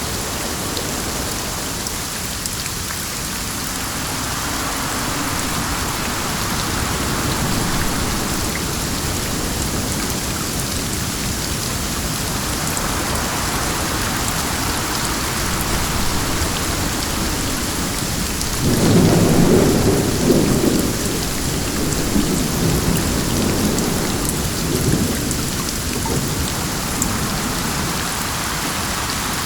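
Steady rain falling, with a roll of thunder that breaks in suddenly about two-thirds of the way through and rumbles on for several seconds before fading back under the rain.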